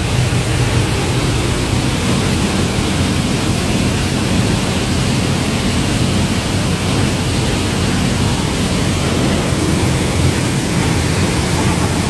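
Loud, steady rush of a waterfall, heard from right behind the falling curtain of water.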